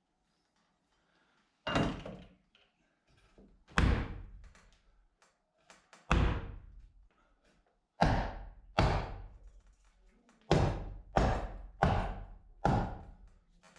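Heavy knocks on wooden wall boards, about nine single blows at irregular spacing, coming closer together in the second half.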